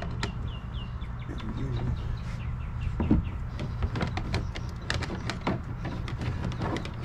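Wire of a metal clothes hanger clicking and scraping against a plastic kayak hull as it is fed through a hatch. Short bird chirps come in near the start.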